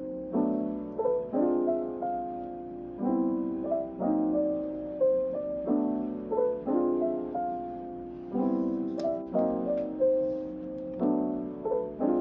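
Soft piano background music, a short chord-and-melody phrase repeating at an easy pace.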